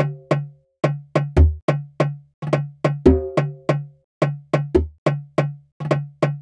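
Sampled percussion loop playing back: a quick, even pattern of short hand-percussion one-shots, about three hits a second. Deep, longer-ringing djembe hits fall about every second and a half.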